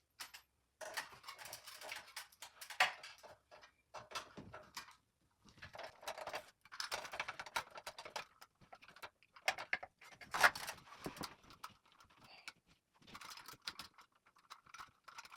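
Irregular scratching, rustling and clicking as electrical wires are handled and worked, with short pauses between bursts and the loudest scrape about ten seconds in.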